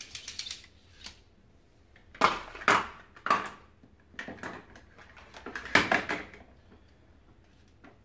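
Hard plastic clicking and knocking as the vacuum cleaner's cable reel is handled and pushed into place on its plastic body, in several short clusters, loudest about two seconds in and again near six seconds.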